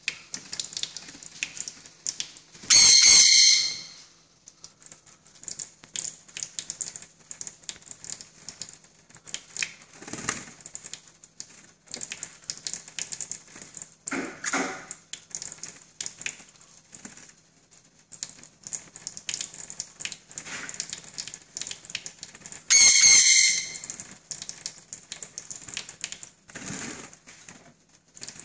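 Pineapple green-cheeked conure bathing under a thin running faucet stream: water spattering and feathers rustling as it fluffs and flaps its wet wings. There are two loud, harsh squawks, one about three seconds in and another about twenty seconds later.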